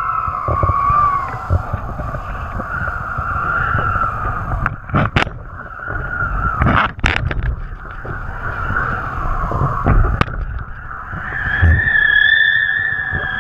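Wind rushing over the microphone of a pole-mounted action camera during kiteboarding: low, uneven buffeting with a wavering high whistle over it. A few sharp knocks break in near the middle.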